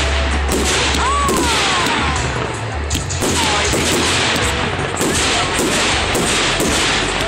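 Fireworks going off in quick succession, many sharp bangs and crackles with whistles that fall in pitch, about a second in, near the middle and near the end.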